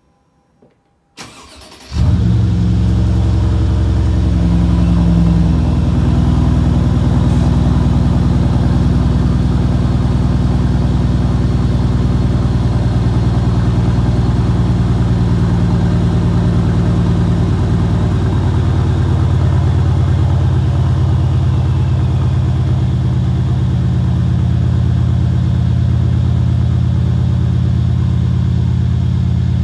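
Mercedes-Benz CLS550's M278 4.7-litre twin-turbo V8 cold-starting through a muffler-deleted exhaust. After a faint click, the starter cranks briefly about a second in, then the engine catches and runs on at a loud, steady cold idle. Its deepest rumble thins about two-thirds of the way through.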